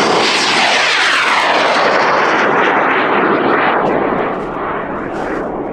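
Amateur high-power rocket motor igniting at liftoff: a loud roar that starts abruptly, holds for about four seconds, then slowly fades as the rocket climbs away.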